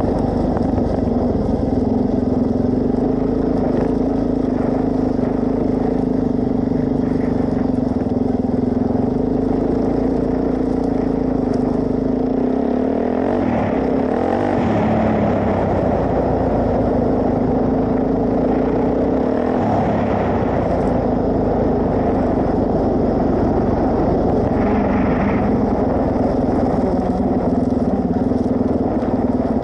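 Suzuki DR-Z400S single-cylinder four-stroke engine running steadily as the motorcycle is ridden, its note dipping and rising briefly a few times in the middle.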